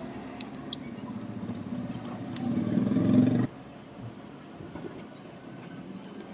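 Ceiling fan motor humming without turning, the 'only sound' fault, growing a little louder and then cutting off suddenly about three and a half seconds in as the power goes off.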